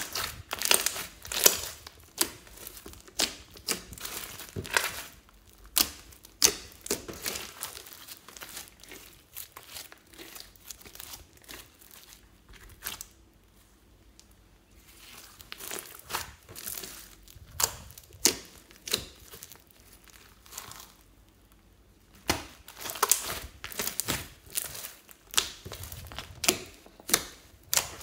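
Floam slime with tiny foam beads being squeezed, stretched and poked by hand, giving clusters of sharp crackles and pops from the beads and trapped air pockets. Two quieter spells break up the crackling.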